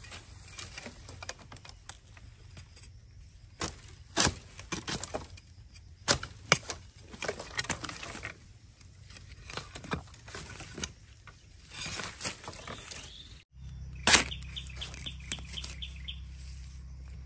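Dry bamboo twigs and stems cracking, snapping and rustling as someone pushes through a dense wild bamboo thicket, with several sharp loud cracks. Near the end comes a single loud chop of a machete into a bamboo shoot, followed by quick bird chirps.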